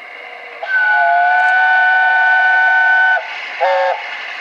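Whistle of LNER A1 Pacific steam locomotive No. 60163 Tornado: one long blast of about two and a half seconds, then a short blast, sounding several notes at once over the hiss of the approaching engine.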